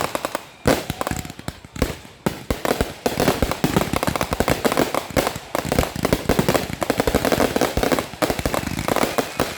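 Fireworks finale barrage: a dense string of rapid bangs and crackling reports, many per second, with only momentary lulls.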